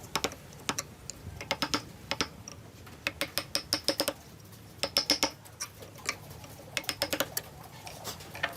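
Light, sharp taps in quick bursts of four to six, several times over, like wood or a tool being tapped during hand joinery.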